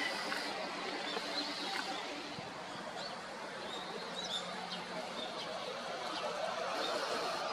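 Faint, short chirps of a flock of Eurasian tree sparrows, a few at a time from about three seconds in, over a steady hiss of running water from a small stream.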